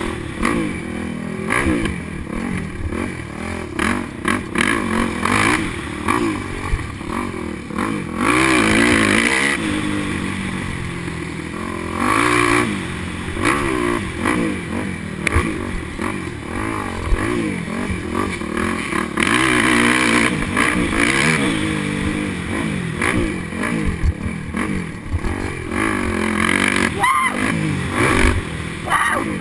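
Motocross dirt bike engine heard from on board at race pace, its pitch rising and falling over and over as the rider opens and closes the throttle and shifts through the gears, with sharp knocks and clatter from the bike over the rough track.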